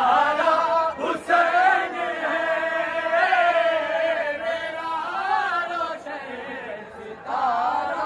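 Men's voices chanting a devotional qasida together in long, drawn-out notes that waver up and down. The chant sags briefly about six seconds in and swells again near the end.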